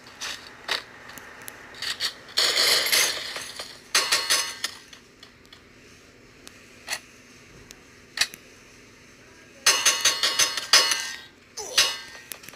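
Hard objects clinking and rattling in four bursts with a ringing edge, the loudest about two and a half seconds in and near ten seconds in, with single clicks between them.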